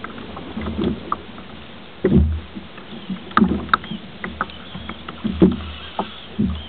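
Kayak hull on open sea: irregular knocks and water slaps against the hull, over a steady hiss.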